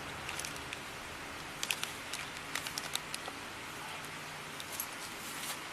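Scattered light clicks and rustles over a steady background hiss.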